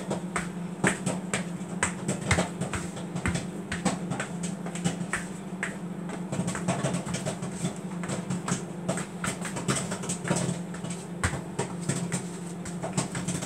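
Popcorn popping in a microwave oven: irregular sharp pops, several a second, over the oven's steady running hum.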